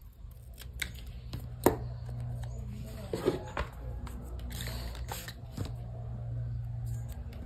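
Hands handling crafting materials: rustling, with a few sharp taps, the loudest about a second and a half in, over a steady low hum.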